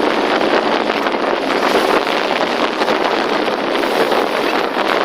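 Steady, loud rushing noise.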